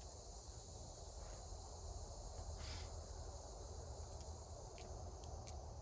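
Steady high-pitched insect chorus in the background, with a few faint short clicks and a low rumble of wind or ambience; no shot is fired.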